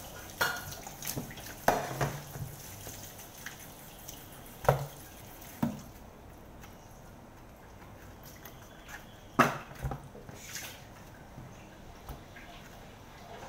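Kitchen tap running and splashing into a steel sink as raw pork pieces are rinsed by hand. Scattered sharp knocks and clatters of containers and a steel pot come throughout, and the running water dies down about six seconds in.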